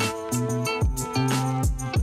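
Background music with a steady beat: deep repeated thumps under sustained pitched notes.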